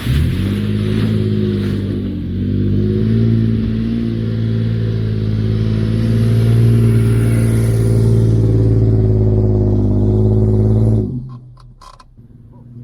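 SUV engine revving up and held at steady high revs for about ten seconds as the wheels churn in soft sand, then cutting off suddenly near the end, followed by a few clicks. The vehicle is burying itself in the sand.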